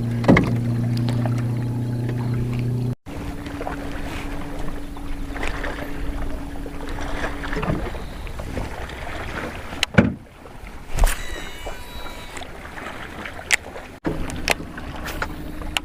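Boat on the water with a steady motor hum, its pitch shifting where the clips are cut together, and a few sharp knocks on the boat.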